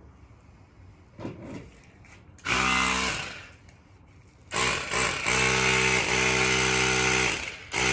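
Electric air pump running in bursts, putting a little air into a new bicycle inner tube: a short burst about two and a half seconds in, a longer one of about three seconds, and another starting near the end.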